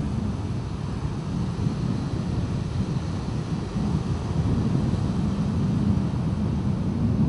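Wind buffeting the microphone as a steady low rumble, over the wash of sea surf.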